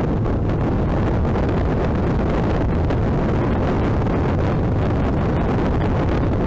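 Steady wind rush on the microphone over a motorcycle running at road speed.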